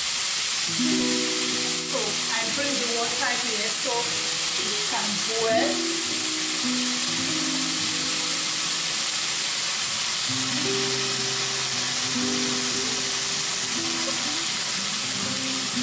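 Steady hiss of a lidded stainless-steel pot of water heating toward the boil on an electric hob. Background music with a slow melody plays over it.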